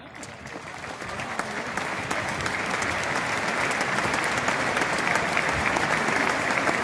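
Large stadium crowd applauding, swelling over the first three seconds into steady, sustained clapping.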